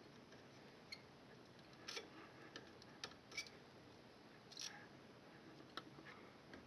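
Near silence broken by a few faint, irregular clicks and taps, roughly six of them, from small tools handled against a circuit board during desoldering.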